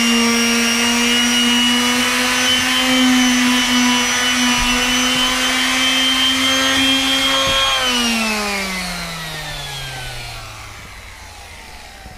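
Makita random orbit palm sander running steadily on deck boards, then switched off about eight seconds in, its motor whine falling in pitch as it spins down.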